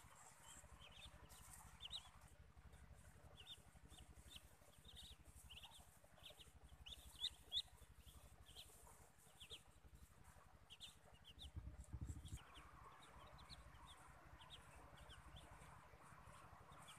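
Muscovy ducklings peeping: many short, high peeps, faint and scattered throughout.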